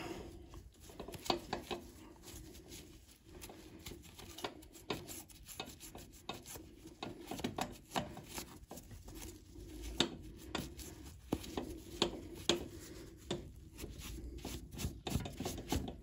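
A cloth rubbing and wiping over a Mazda MX-5's rear brake caliper piston and body, mixed with many small scattered clicks and taps of the metal parts being handled.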